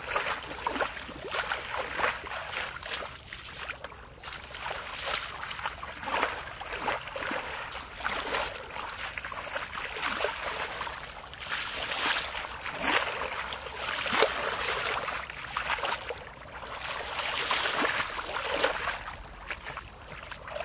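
Feet wading and treading through shallow muddy water: irregular sloshing and splashing that swells and fades as two people churn the mud.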